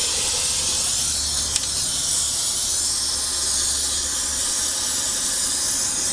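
Oxy-fuel torch flame hissing steadily as it heats a seized bolt on a truck's rear differential.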